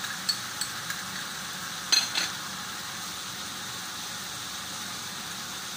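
Chicken pieces sizzling steadily in a frying pan. A few light clinks as a metal spoon works in a small glass bowl in the first second, then a louder knock about two seconds in.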